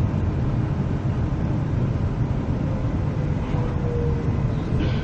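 Steady low rumble of an NGR electric multiple-unit train heard from inside the passenger cabin, with a faint whine that slides slightly down in pitch in the second half as the train slows into a station.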